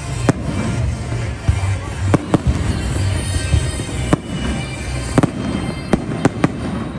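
Aerial fireworks bursting overhead: about ten sharp bangs at irregular intervals, several in quick pairs in the second half, over a steady low rumble from the barrage.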